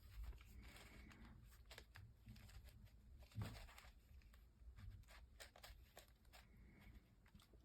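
Near silence: room tone with faint scattered clicks and a slightly louder knock about three and a half seconds in.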